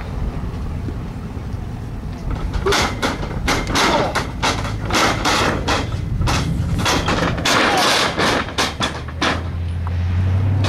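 Irregular thuds and knocks of wrestlers grappling and hitting the ring mat, over a low wind rumble on the microphone. A vehicle engine's low, steady hum comes in near the end.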